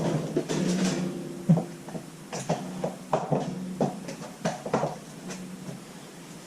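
Shelf parts knocked and clanked together while being fitted, a string of about eight short sharp knocks at uneven intervals over a faint steady low hum.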